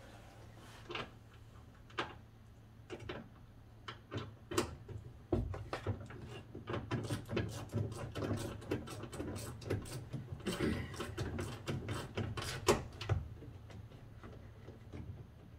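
Rapid, irregular clicking and rattling of a hand tool working a T20 Torx screw on a door latch inside a car door, thickest through the middle and thinning out near the end.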